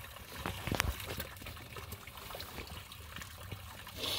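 Irregular crackling and small pops over a faint hiss, with one sharper crack about a second in.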